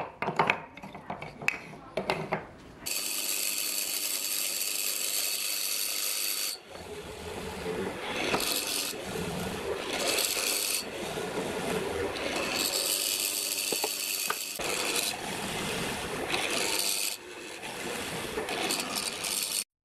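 Wooden rails knocking together as they are handled on a table, then from about three seconds in a benchtop hollow-chisel mortising machine running with a steady high whine as its chisel chews square mortises into the wood, dipping briefly a few times between plunges. It cuts off suddenly near the end.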